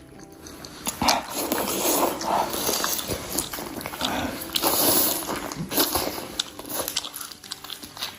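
A dog chewing food it has just been given, a dense run of crunching and clicks from about a second in until about six seconds in.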